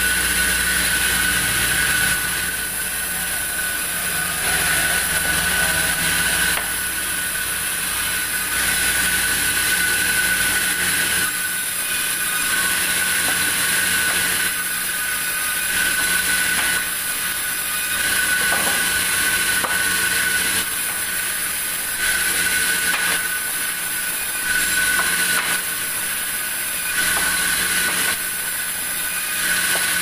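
Large vertical band saw running with a steady high whine while wooden slabs are fed through the blade. The noise swells and drops every two to three seconds as the cuts go through and boards come off.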